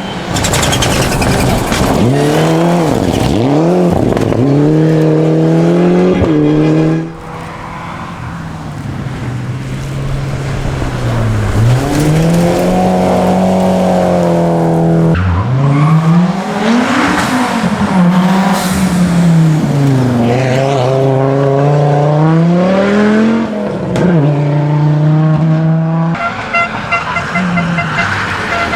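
Rally car engine running hard at high volume, its revs rising and falling over and over as it accelerates and backs off.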